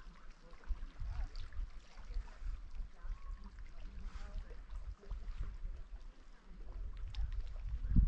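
Faint water sounds over an uneven low rumble that swells near the end.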